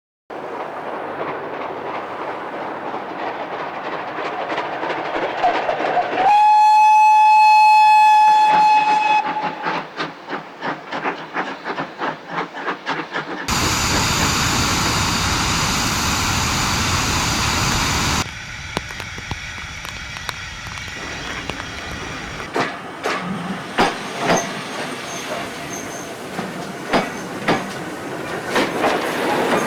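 Steam locomotive on the move, blowing one steady whistle of about three seconds, then a rhythmic beat as it runs. A loud steady rush follows for several seconds, then the clicks and knocks of the train passing over the rails.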